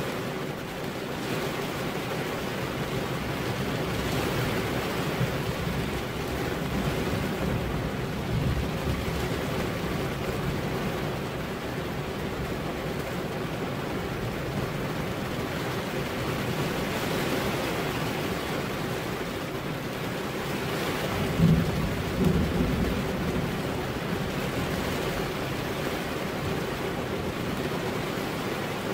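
Steady rain falling on a window pane. A low rumble swells briefly about two-thirds of the way through, the loudest moment.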